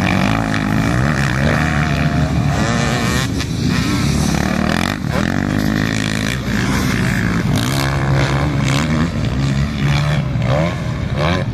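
Motocross bike engine revving hard and easing off again and again, its pitch climbing and falling as the rider works the throttle over the jumps.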